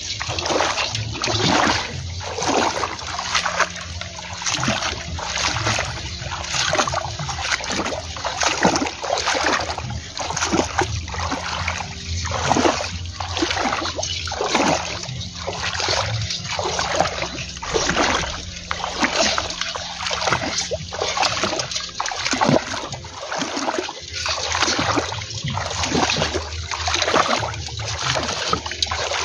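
Repeated splashing in shallow water at a walking pace, about three splashes every two seconds: steps wading through the water.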